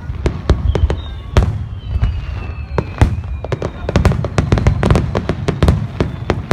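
Fireworks finale barrage: a rapid run of shell bursts and crackling reports over a continuous low rumble, growing denser after about four seconds, with faint whistles about a second in.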